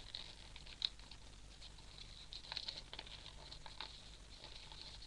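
A sheet of origami paper being folded and creased by hand: light, scattered rustles and small clicks, over the steady low hum of a fan.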